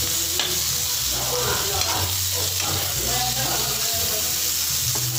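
Sliced onion rings sizzling as they fry in a wok, stirred with a spatula, with one sharp click about half a second in.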